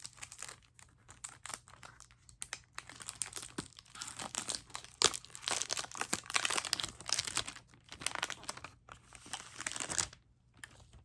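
Packaging and cellophane wrap being torn open and crumpled by hand: dense, irregular crinkling and tearing that dies away about ten seconds in.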